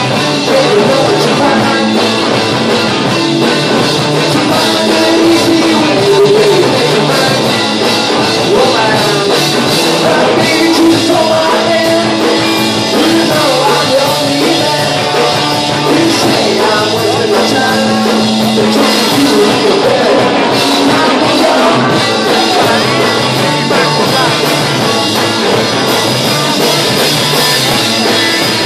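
Live rock band playing through a loud amplified sound system: electric guitars and a drum kit, with a singer's vocals over them.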